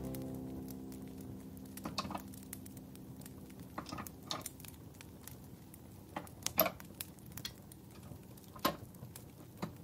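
Light clicks and taps of small utensils on miniature cookware, a handful of them spread a second or two apart.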